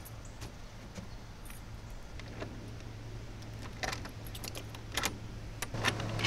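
Keys jangling and sharp metal clicks as a padlock on a shed door's hasp is unlocked, most of it in a cluster from about four to five seconds in, with a few more clicks near the end.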